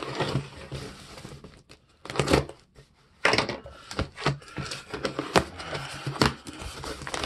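Cardboard shipping box being handled and opened: irregular scraping, tapping and tearing noises in short bursts.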